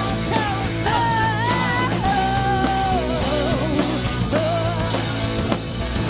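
Live rock band playing: a sung melody over electric guitar, bass and drums.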